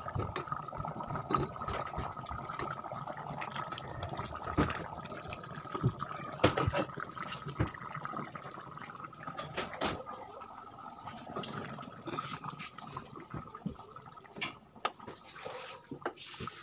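Chicken curry bubbling as it simmers in a kadai on a gas stove, with a dense run of small pops and crackles over a steady faint high tone. A few sharper clicks come near the end.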